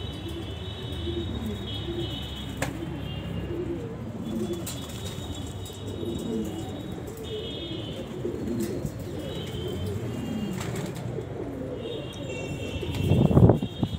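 Pigeons cooing over and over in low, wavering calls. Near the end there is a brief, loud low rumble.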